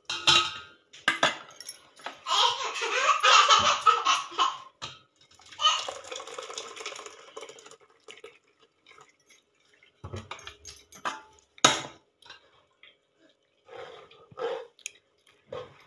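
Ground coconut and water slurry poured into a stainless-steel mesh strainer over a steel pot, splashing in two pours a few seconds long. Later come scattered clicks and one sharp clink of steel as the pulp is worked in the strainer.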